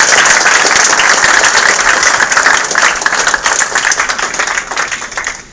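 Audience applause: many people clapping at once, loud and dense, dying away over the last couple of seconds.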